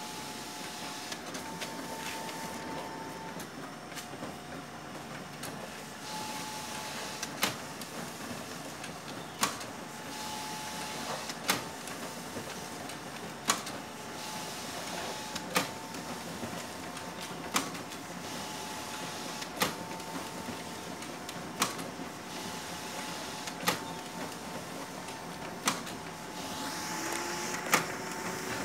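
Multifunction office photocopier running a copy job onto A4 paper: a steady mechanical whir, with a sharp click about every two seconds. A rising tone joins in near the end.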